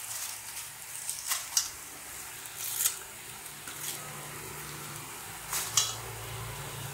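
Chopped onion, peanuts, green chillies and curry leaves sizzling in hot oil in a kadhai, a steady hiss with a few short, sharp crackles.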